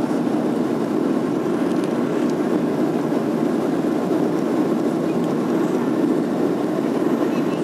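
Steady engine and airflow noise inside the passenger cabin of a Boeing 737-700 airliner, even and unchanging, strongest in the low-middle range.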